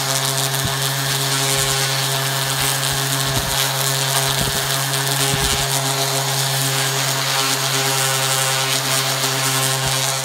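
DeWalt orbital sander running steadily with a 220-grit pad on a wooden axe handle: a constant motor hum under the hiss of sandpaper on wood.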